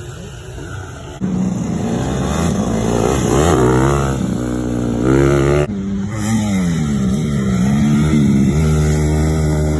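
Motocross dirt bike engines revving up and falling back again and again as the riders work the throttle and shift. The sound changes abruptly, louder about a second in and again near six seconds, where the footage cuts between bikes.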